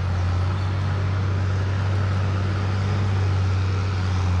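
Heavy diesel engine of logging equipment running at a steady speed, a constant low drone.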